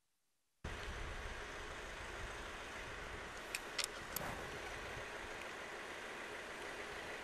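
Steady outdoor street ambience: a low rumbling hum with faint steady tones that cuts in abruptly just under a second in. A little past halfway, three sharp clicks come within about half a second.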